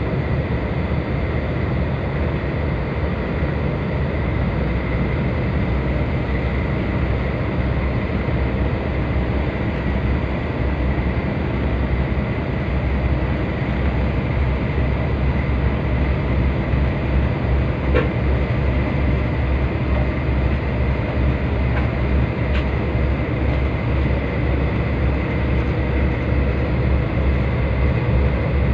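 Tugboat's diesel engines running steadily, heard inside the wheelhouse as a deep drone with a faint high steady whine, and a couple of light clicks partway through.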